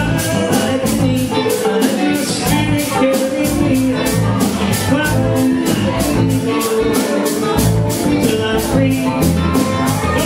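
Live rock band playing, with electric guitar, bass and drum kit, and a steady hi-hat pulse ticking through the music.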